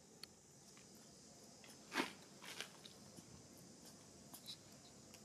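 Young macaque quietly chewing a small bit of food, with one sharp crunch about two seconds in and a couple of fainter crunches just after.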